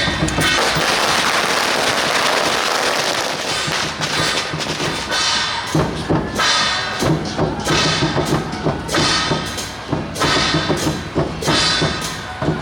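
Chinese temple-procession percussion, drum with gongs and cymbals, beating out a rhythm of repeated strokes. For about the first four seconds it sits under a dense crashing wash of noise.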